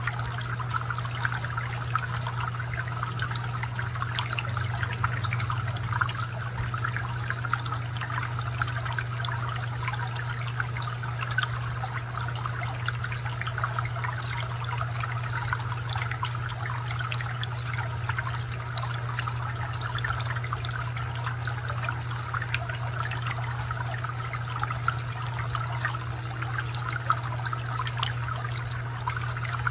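Garden fountain water trickling and splashing steadily over a steady low hum, with a few brief sharper ticks.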